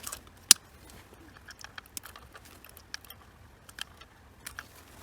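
Small clicks and light rustling of hands joining alarm wiring, with one sharp click about half a second in.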